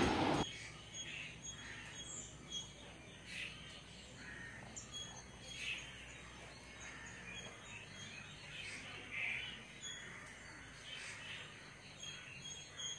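Birds chirping and calling in garden trees in the morning, many short, scattered calls one after another, faint.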